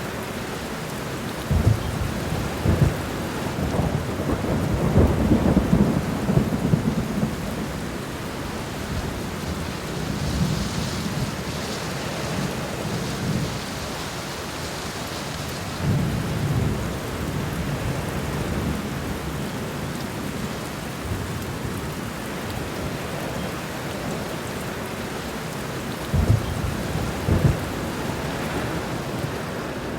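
Heavy rain falling steadily, with low rumbles of thunder that come and go several times, the strongest in the first several seconds and again near the end.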